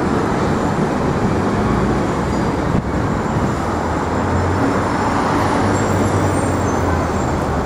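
Steady city street traffic: a continuous wash of passing vehicles, with a low engine drone that is strongest in the middle.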